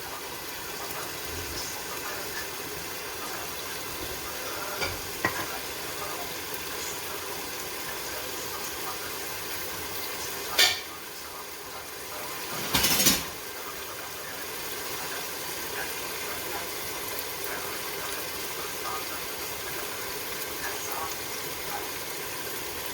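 Onion, garlic and tomato frying in a pot with a steady sizzle while being stirred. A few sharp clinks of the spoon against the pot, the loudest about halfway through and again a couple of seconds later.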